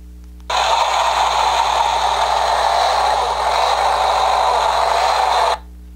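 Recorded backhoe machinery sound effect played through the small speaker of a children's construction-site sound book after its button is pressed. It starts about half a second in, runs steadily with little bass for about five seconds, and cuts off suddenly.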